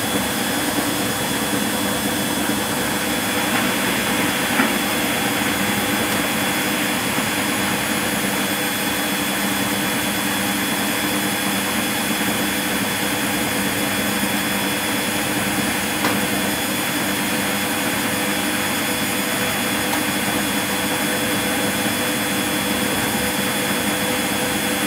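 Constructa Contura washing machine running mid-cycle: a steady, even mechanical noise with a faint constant hum, and one or two small clicks.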